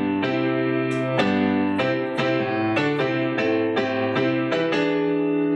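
Music: an instrumental passage on keyboard with an electric-piano sound, playing a steady run of struck notes and chords about three a second, with no singing.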